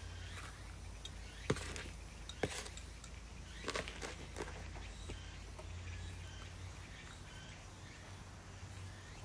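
Gloved hands handling plastic plant pots and potting soil: scattered light knocks and rustles, the sharpest about a second and a half in and a few more close together around four seconds in, over a steady low hum.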